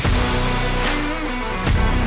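Background music with a steady beat and held chords.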